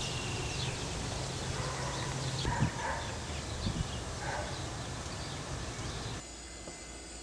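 Outdoor ambience: scattered bird chirps over a steady low hum, with a single low knock about two and a half seconds in. The sound drops abruptly to a quieter hiss about six seconds in.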